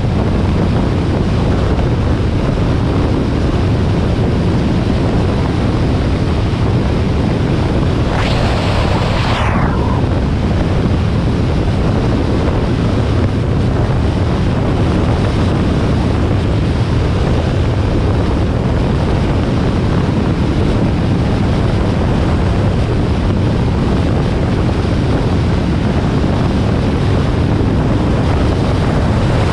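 Harley-Davidson Sportster XL1200R's air-cooled V-twin running steadily at road speed, under heavy wind rush on the microphone. About eight seconds in, a brief whoosh falls in pitch.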